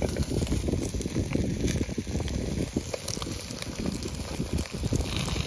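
Open fire crackling and chicken sizzling on a wire grill: a steady hiss dotted with many small pops.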